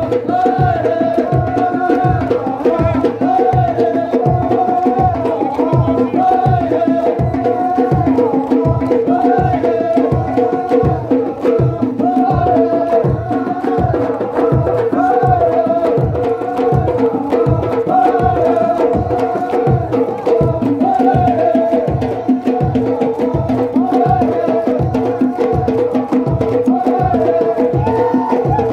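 Traditional folk music: a drum beats a steady pulse of about three strokes every two seconds under a held drone and a wavering, repeating melodic line.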